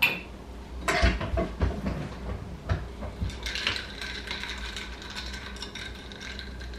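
Ice cubes clinking against a glass as a drink is stirred with a straw, a run of light irregular clicks and taps. A faint steady high tone joins about halfway through.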